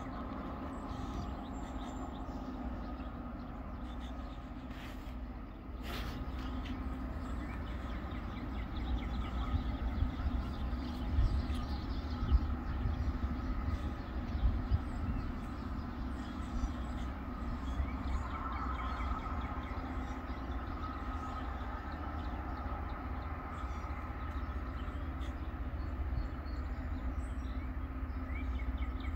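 Rail grinder working along the track: a steady grinding drone over a low engine rumble.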